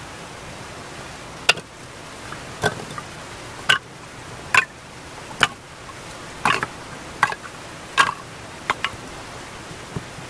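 Short pieces of log being laid one by one onto a pile, knocking against each other: about ten sharp wooden clunks roughly a second apart, over a steady hiss.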